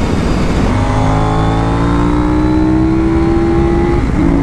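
Onboard sound of a Ducati superbike's V-twin accelerating, its pitch climbing steadily, with a short break and drop in pitch about four seconds in as it changes gear. The first fraction of a second is a rougher engine-and-wind sound before the clearer V-twin note comes in.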